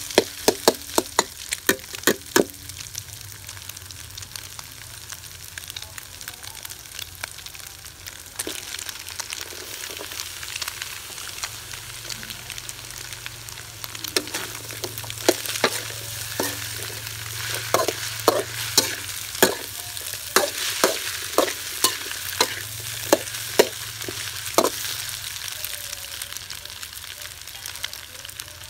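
Scrambled egg, and then pumpkin strips, sizzling steadily in a steel wok, with a metal spoon clacking and scraping against the wok as the food is stirred. A quick run of strokes comes in the first couple of seconds, then a stretch of plain sizzling, then another run of strokes from about halfway through.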